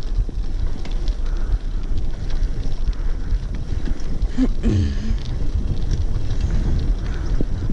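Wind buffeting the microphone of a bicycle in motion, a steady low rumble with a few light knocks from the ride. About four and a half seconds in, a short sound that bends up and down in pitch cuts through briefly.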